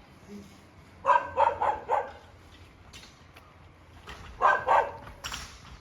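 Dog barking in sharp bursts: a quick run of about four barks a second in, then two or three more near the end.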